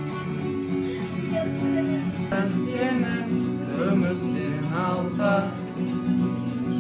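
Music: guitar chords played steadily, with a singing voice coming in about two and a half seconds in.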